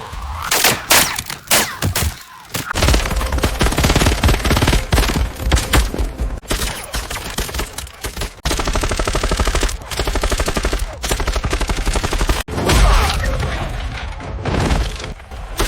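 Gunfire in volleys, including a long run of fast automatic fire that cuts off abruptly, followed by a heavy thud.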